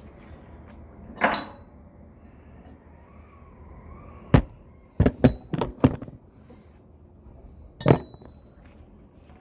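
Metal clanks and knocks from work on elevator hardware. There is a ringing clang about a second in, a sharp knock, then a quick run of four knocks, and another ringing clang near the end.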